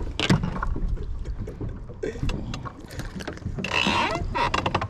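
Wind buffeting the microphone as a low rumble, with scattered knocks and rattles of handling gear and fish on a small fishing boat.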